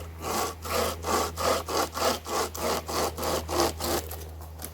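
Hand chainsaw, a loop of saw chain pulled back and forth by hand, cutting through a small hardwood branch in quick even strokes, about three a second. The strokes stop about four seconds in as the cut goes through.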